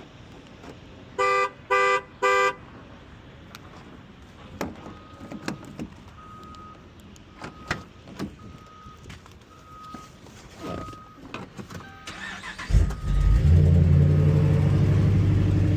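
Dodge's horn gives three short honks, then a dashboard chime beeps over and over, then the engine cranks briefly, catches and settles into a steady idle, running on its newly replaced and programmed ignition module.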